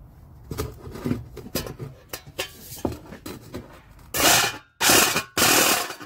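Cordless Ryobi jigsaw with a metal-cutting blade cutting light-gauge sheet steel. It runs in three short loud bursts in the last two seconds, after a few seconds of light knocks and clicks.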